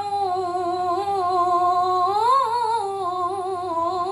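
A woman's voice in melodic Quran recitation (tilawah), drawing out one long held note with wavering ornaments; about two seconds in the pitch swells up and settles back. The voice rings off the walls of a small tiled room.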